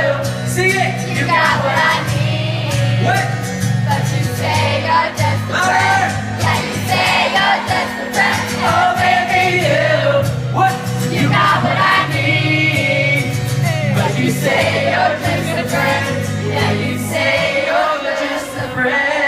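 Live band music with singing: a steady bass line under sung vocal runs that the recogniser took no words from.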